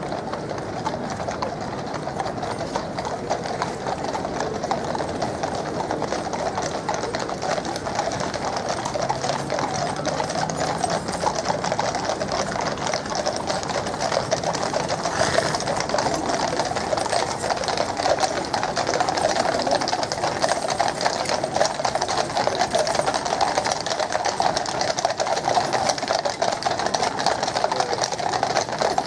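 Many horses' shod hooves of a mounted Household Cavalry troop clip-clopping on the road as they ride past. It is a dense, rapid clatter that grows louder in the second half, with crowd voices underneath.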